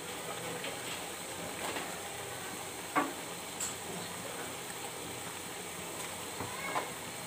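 Goat meat and spices sizzling quietly and steadily in mustard oil in an aluminium pot, with a faint click about three seconds in.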